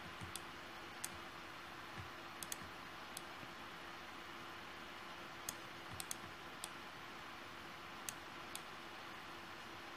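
Computer mouse clicking: about a dozen short, faint, irregularly spaced clicks while the clone stamp tool is worked, over a steady low hiss and hum.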